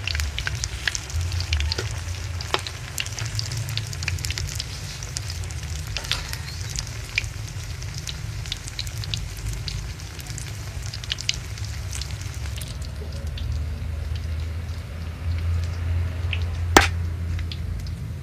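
Battered breadfruit slices deep-frying in coconut oil: a steady sizzle full of small crackles over a low hum, with one sharp clack near the end.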